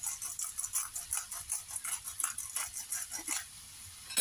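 Black-pepper grinder being twisted over a pan of vegetables: quick, rhythmic grating crunches, about four or five a second, that stop about three and a half seconds in. A single sharp click comes near the end.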